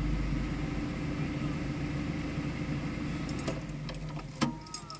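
Vehicle engine running steadily at low revs, fading away over the last second or two, then a few sharp clicks and a knock near the end.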